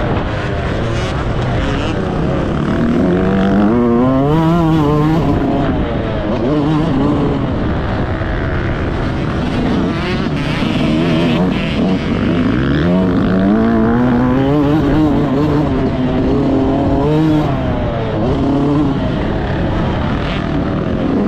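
Yamaha YZ125's single-cylinder two-stroke engine under hard riding, revving up and easing off so its pitch climbs and drops several times.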